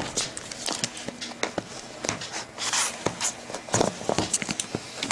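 Tape being cut and pulled off the sides of a small cardboard phone box, along with camera handling: scattered clicks and knocks and short tearing rasps, the longest rasp about halfway through.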